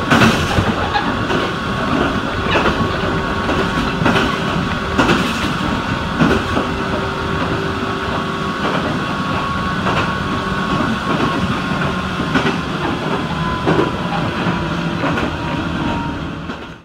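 Toyama Chihō Railway electric train running along jointed track, heard from inside the front cab: a steady running rumble with a faint steady whine and irregular clacks of the wheels over rail joints. The sound fades out near the end.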